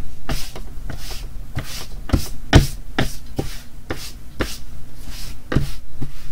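A hand sweeping across a sheet of drawing paper again and again, brushing off eraser crumbs: quick swishes with light thumps on the table, about two or three a second, the heaviest about two and a half seconds in.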